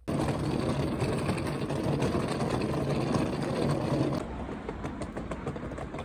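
Outdoor street noise with passing traffic running steadily, dropping to quieter ambience about four seconds in, with faint footsteps.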